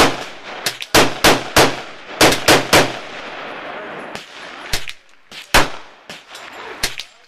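Rapid gunshots: about a dozen sharp shots, the loudest in two quick runs of three, each about a third of a second apart, with fainter shots in between and after.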